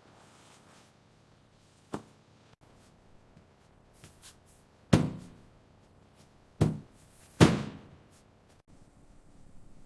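A few separate sharp knocks, each ringing out briefly: one about two seconds in, then louder ones about five, six and a half and seven and a half seconds in, with a couple of faint ticks just before the fifth second.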